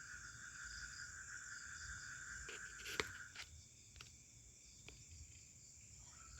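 Forest insects chirring steadily at night in two high, even tones. The lower one stops about halfway through and starts again near the end, and a few light clicks and knocks come around the middle, one sharper than the rest.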